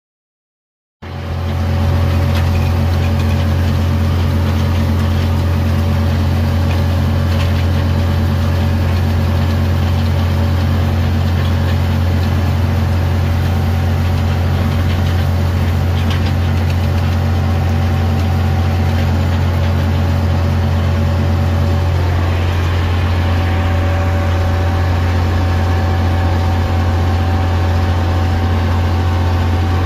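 White 2-105 tractor's six-cylinder diesel engine running steadily under load while pulling a hay tedder, heard from inside the cab. It cuts in about a second in.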